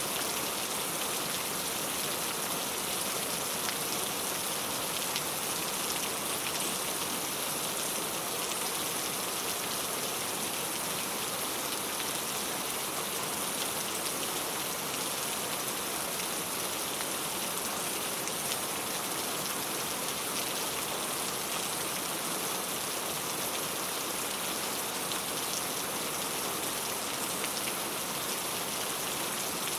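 Steady rain falling on a clay-tile roof: a constant even patter with scattered individual drops ticking on the tiles.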